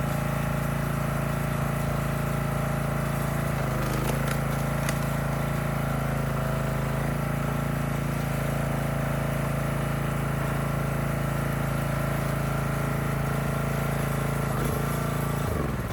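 An engine running steadily at constant speed, with a couple of brief knocks about four and five seconds in, then shut off near the end, its pitch dropping as it winds down.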